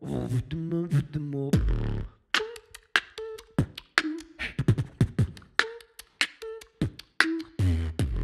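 Beatboxing: a man performing a basic, standard beat of vocal kick, snare and hi-hat sounds in quick succession, with short hummed notes woven between the strokes.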